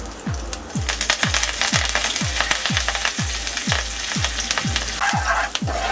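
Hot oil sizzling and crackling as mustard seeds, urad dal and chana dal fry for a tempering in a non-stick pan. The spluttering thickens about a second in, and the sizzle grows fuller near the end once curry leaves go in.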